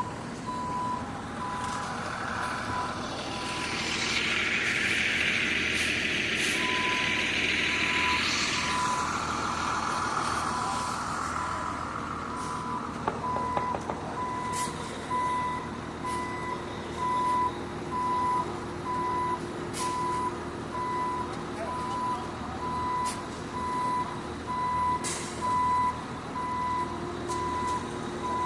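A truck's reversing alarm beeping steadily about once a second over an idling engine, with a loud hiss of air from about four to nine seconds in.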